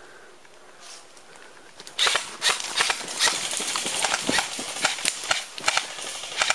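A quick, irregular series of sharp knocks with rustling, about three a second, starting about two seconds in after a quiet start.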